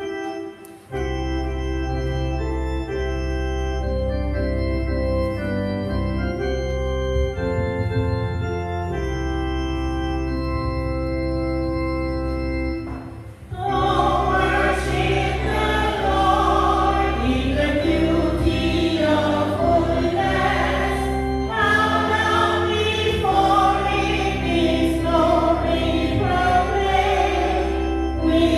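Organ playing a hymn introduction in long held chords. About thirteen seconds in, a group of voices starts singing the hymn over the organ.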